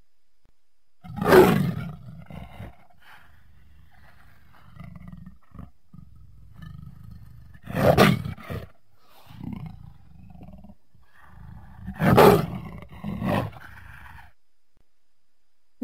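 Black leopard roaring: three loud calls about four to five seconds apart, each followed by softer grunts.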